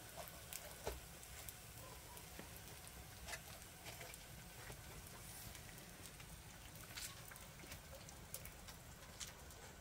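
Faint patter of rain with scattered single drips ticking at uneven intervals.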